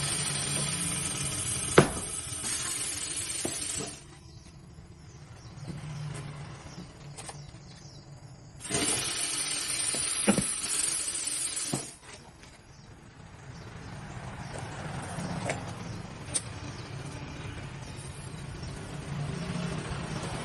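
Two long bursts of loud hissing, the first about four seconds long and the second about three, with scattered knocks and clinks between them and a low steady hum underneath.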